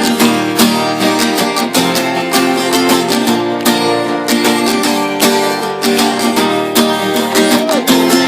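Acoustic guitar strumming chords in a steady rhythm, the instrumental introduction to a hymn before the singing comes in.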